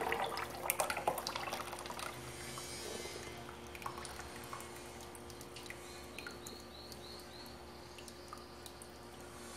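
Blended lemon purée poured from a blender jug into a pot of hot used frying oil, the oil crackling and popping. The pops are thick at first and thin out after about two seconds.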